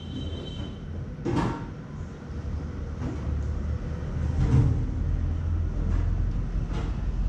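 Hands massaging a head close to the microphone: a steady low rubbing rumble with a few sharp taps, the loudest about a second in.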